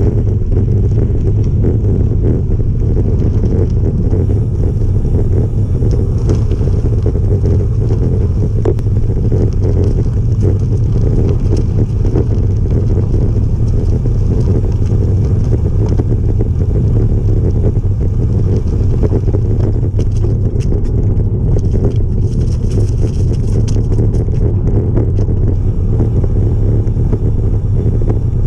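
Wind rushing over the microphone of a camera on a moving road bike: a loud, steady low rumble with no breaks.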